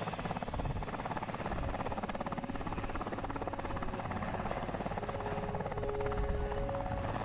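VH-3 presidential helicopter with its rotor beating in a fast, steady rhythm over a low engine hum, as it lands or sits on the pad with rotors turning.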